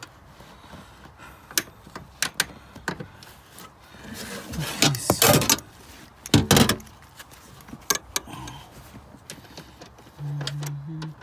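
Handling noises from bolting up a car's rear seat and battery mounting: scattered sharp clicks and knocks of metal and plastic, a louder scraping rustle about halfway through, then a short loud clatter. A brief low hum comes near the end.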